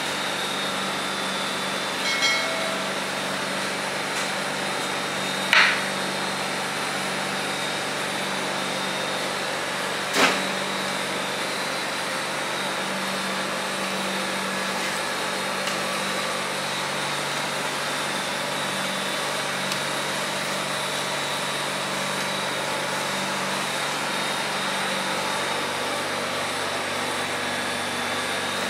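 A steady mechanical hum of shop machinery, with three short knocks about two, five and ten seconds in.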